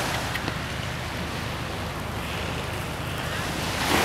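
Wind buffeting the microphone over the steady wash of small waves on the shore. The noise swells louder near the end.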